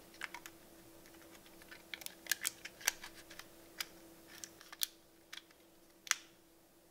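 Small, sharp plastic clicks and taps from a Canon PowerShot ELPH compact camera as an SD card is pushed into its slot and the battery and card door is snapped shut by hand, about a dozen irregular clicks.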